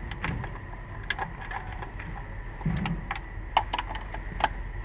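Irregular sharp metallic clicks and clinks of hand tools being handled, over a steady low hum.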